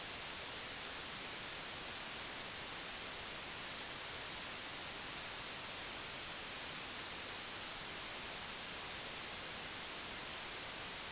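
Steady white noise from a DAW signal-generator plug-in, an even hiss at a constant level. It is a test signal made to match the hiss component of an analog compressor emulation's noise.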